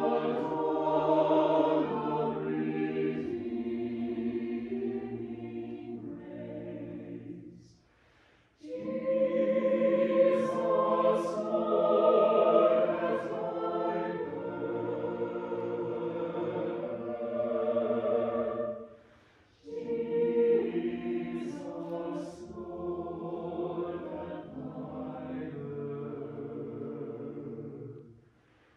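Choir singing in long, held phrases. The singing breaks off briefly about eight seconds in, again near twenty seconds, and once more at the end.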